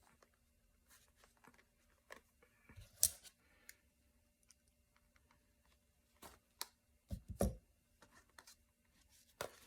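Faint scattered rustles and ticks of hand-sewing a journal binding: thread being drawn through the paper pages, with a sharp tick about three seconds in and a couple of dull bumps about seven seconds in.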